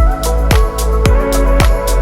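Background music with a steady electronic beat: a deep kick drum with a falling pitch about twice a second, crisp high hits between the kicks, and held tones underneath.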